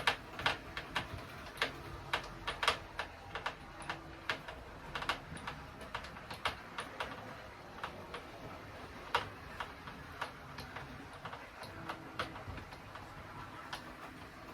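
Irregular sharp clicks and light taps of metal and plastic parts being handled and fitted together while a bike repair stand is assembled, coming thick in the first half and more sparsely later.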